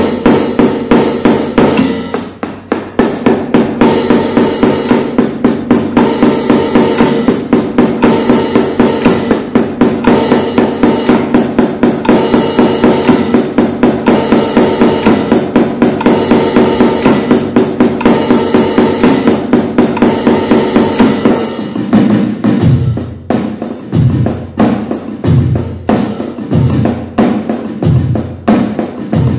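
Sampled hi-hat sounds from a Yamaha electronic drum kit, struck rapidly and steadily to test the rewired HH65 hi-hat pedal, whose pressure sensor has been swapped for a tactile switch. About three-quarters of the way through, deep kick-drum hits join in roughly every second and a bit, turning it into a simple beat.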